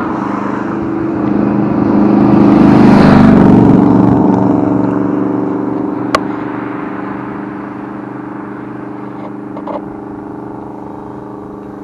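A vehicle's engine running with a steady low hum, loudest with a rushing whoosh about three seconds in as it passes, then slowly fading.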